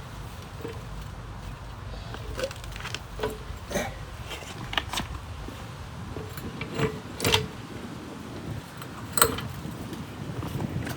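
Scattered metallic clinks and knocks as a car jack is set under the cross member and raised, a few of them ringing briefly; the sharpest clink comes about nine seconds in.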